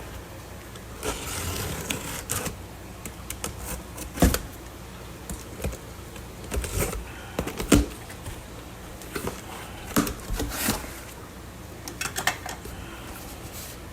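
Handling noise as shipping bags and boxes are moved about: scattered clicks, knocks and brief rustles, the sharpest knocks a little before the middle and about two-thirds through, over a steady low hum.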